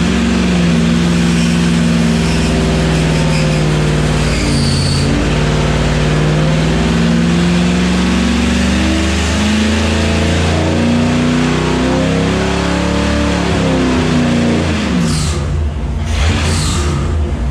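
A 241 cubic inch first-generation Hemi V8 running under load on an engine dyno. It holds a steady speed, then its revs climb through a pull toward 4200 RPM. About fifteen seconds in, it drops quickly back down as the pull ends.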